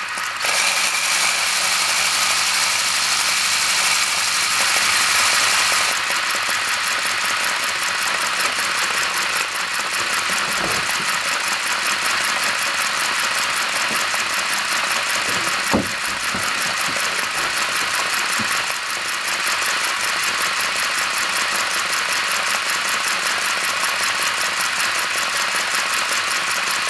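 Aster BR 52 live-steam model locomotive's cylinders and running gear turning fast on compressed air, the wheels spinning free on a stand: a rapid, even rattle and hiss of exhausting air and moving rods, with a couple of brief knocks. The drive is being run in on air.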